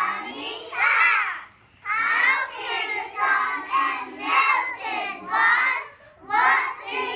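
A group of young children singing together in phrases, with short breaks between lines about two seconds in and again near the six-second mark.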